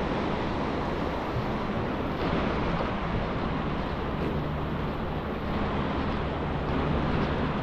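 Mountain river rushing over rocks in white water: a steady, even roar of running water.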